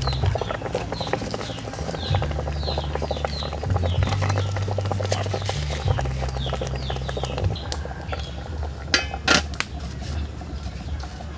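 A metal pot lid clanks twice onto a cooking pot about nine seconds in, the loudest sound here. Before that a small bird chirps over and over, short falling notes about twice a second.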